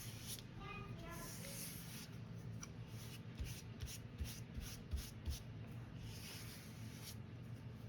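Paintbrush rubbing and dabbing on paper: a run of short, quick strokes in the middle, with a few soft knocks.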